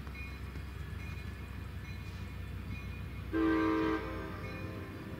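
EMD SD40-2 diesel locomotive's two-stroke engine rumbling as the train approaches, with one short horn blast a little over three seconds in.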